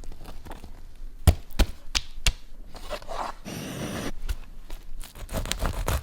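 Knife cutting through a crusty sandwich on a wooden board: a few sharp knocks, a rasping stretch of sawing through the bread about midway, then more knocks near the end.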